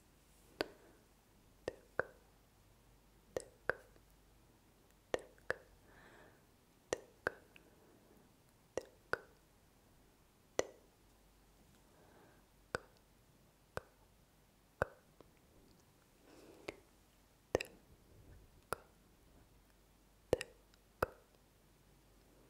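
Close-miked ASMR 'tk tk' mouth sounds: crisp tongue clicks, mostly in quick pairs, a pair every second or two, with faint soft breathy sounds between.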